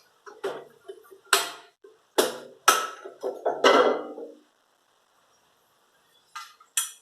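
Clicks and knocks of a ride-on mower's battery box cover being handled, unlatched and opened: a cluster of sharp clicks in the first half, a pause, then two more short clicks near the end.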